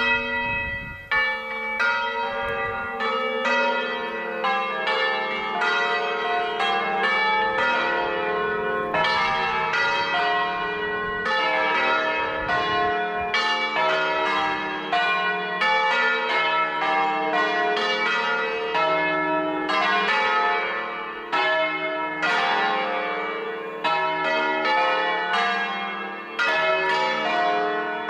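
Church bells ringing: several bells of different pitch struck in quick, overlapping succession, about two strokes a second, each stroke ringing on.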